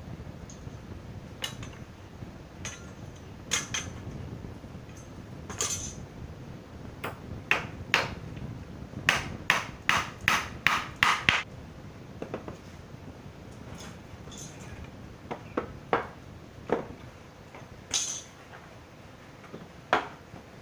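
Hammer driving nails into a wooden frame: scattered single blows, then a quick run of about six strikes near the middle, and a few more knocks later.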